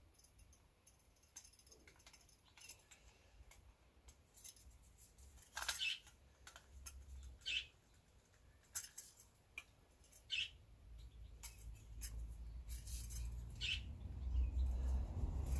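Scattered small metallic clicks and squeaks as a lightweight screw-on camping gas stove is handled on its canister, with a low handling rumble building near the end.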